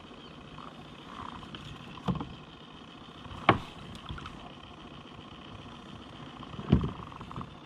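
A few knocks on the plastic hull of a fishing kayak as tackle is handled: one about two seconds in, a louder sharp one near the middle and a duller thump near the end, over steady water and air noise.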